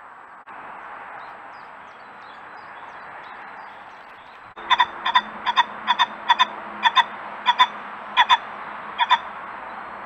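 Male common pheasant calling: a run of about eight short, sharp double notes, each pair a quick 'kok-kok', starting about halfway through and repeating every half second to a second, over a steady hiss.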